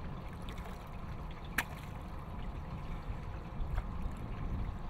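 Water sloshing and trickling over a steady low rumble, with one sharp click about a second and a half in.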